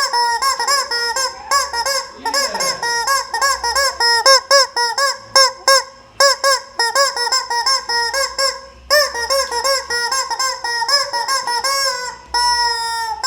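A hen calling loudly and without pause: a rapid series of short, arched, nasal calls, several a second, with only brief breaks.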